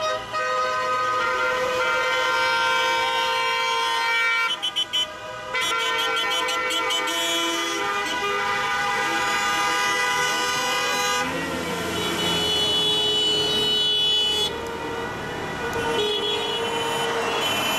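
Many car horns honking together from a passing motorcade, several held at different pitches at once, with a run of quick short beeps about five seconds in.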